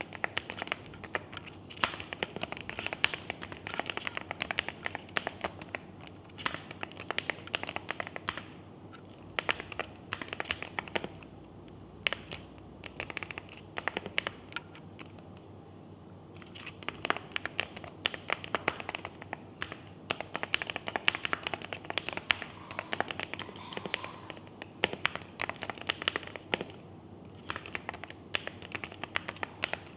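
Fast typing on a Dekay Galaxy100 mechanical keyboard with Gateron Quinn switches and Loga Tuktuk keycaps: dense runs of key clacks, broken by a few short pauses.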